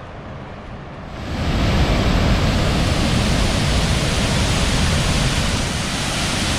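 Waterfall rushing as a loud, steady noise with no distinct tones, coming in abruptly about a second in over a quieter background.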